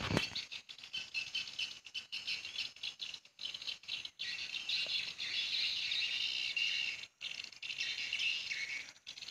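Dense, high twittering of edible-nest swiftlets, many calls overlapping without a break except for a few brief drop-outs.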